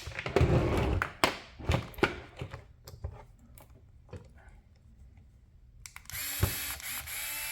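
A few sharp clicks and knocks of small parts being handled, then, about six seconds in, a small electric screwdriver running steadily with a light whine as it backs a screw out of the RC car.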